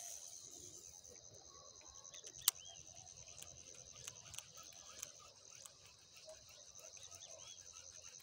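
Insects, likely crickets, trilling steadily in a fast, even, high-pitched pulse. A single sharp click comes about two and a half seconds in, with a few fainter ticks later.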